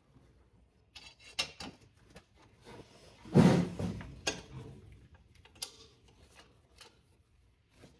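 Pliers working a metal C-clip into place in an engine bay: scattered light metallic clicks and knocks, with one louder knock about three and a half seconds in.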